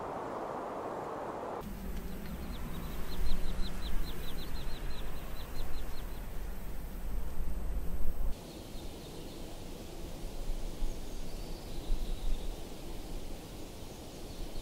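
Outdoor nature ambience with a small bird's rapid trill, about five short high notes a second for some three seconds, over a low rumble, followed by a few faint chirps. It opens with a steady hiss that cuts off after a second and a half.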